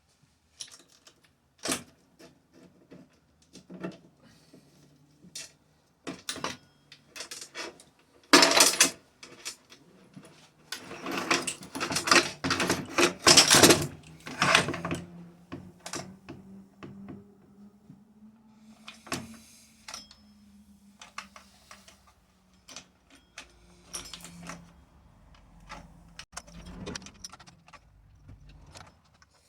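Metal clinks, rattles and knocks from handling a chainsaw's chain, bar and tools, with louder spells of rattling about a third of the way in and again around the middle.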